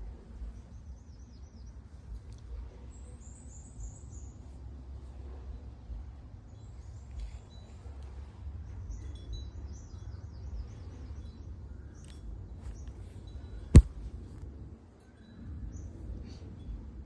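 Small birds chirping and trilling in short, high, repeated phrases over a low steady rumble, with one sharp click about fourteen seconds in.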